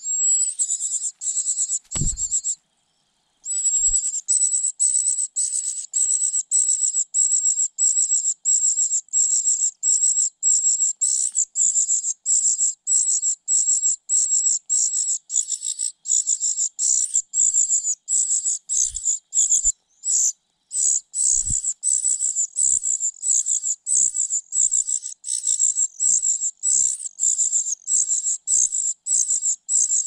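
Nestlings begging in a ground nest that holds a parasitic cuckoo chick: short, thin, high-pitched calls about twice a second, keeping on without letup apart from a brief pause after about two seconds. A few soft low thumps come from the chicks moving in the nest.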